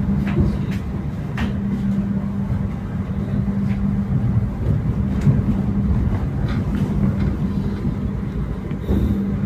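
Passenger train running, heard from inside a coach of the KA Kutojaya Utara: a steady rumble with a constant low hum and a few light clicks and knocks.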